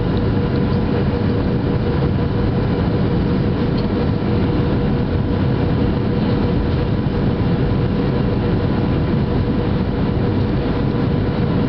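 Steady rumble of an airliner's engines and rushing air heard from inside the cabin on approach to landing, with a constant hum running through it.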